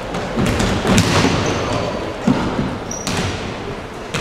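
Indoor futsal play: the ball being kicked and thudding a few times, with short high squeaks of shoes on the court floor.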